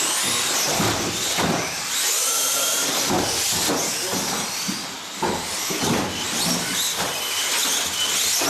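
Several small-scale electric RC off-road cars racing on a carpet track, their motors whining and rising and falling in pitch as they speed up and slow down, over a steady hiss of tyres and hall noise.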